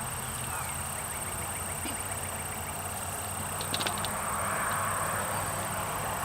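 Hands digging and rustling through loose garden soil, with a short cluster of sharp clicks about two-thirds of the way in, over a steady high-pitched buzz and a low hum.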